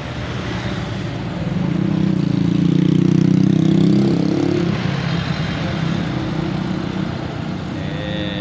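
Motor vehicle engine running close by, growing louder to a peak about three to four seconds in and then easing off, over steady street traffic.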